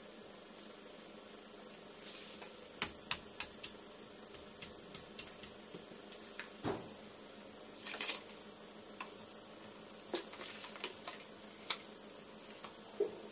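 Steady high-pitched insect drone, with scattered sharp clicks and knocks from plastic bottles and bait being handled.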